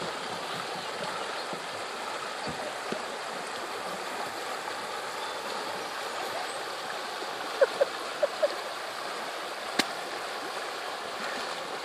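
River water rushing steadily past. A few short chirp-like sounds come about eight seconds in, and there is a sharp click near the end.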